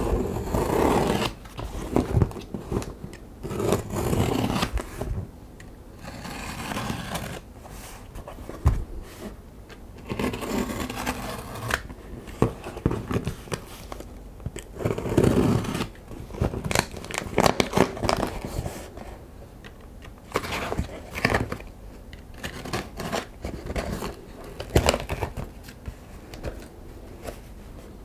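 Utility knife slicing through packing tape on a cardboard box: irregular scraping, tearing strokes of the blade through tape and cardboard, with sharp clicks and knocks as the box is handled.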